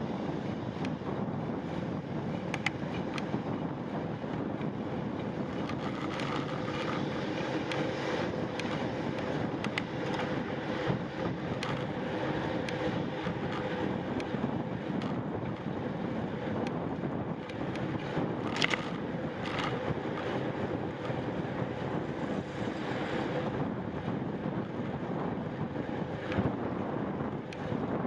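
Wind buffeting the microphone as a bicycle rides along a street, over a steady rush of road and traffic noise. A few sharp clicks or rattles cut through, the loudest about two-thirds of the way through.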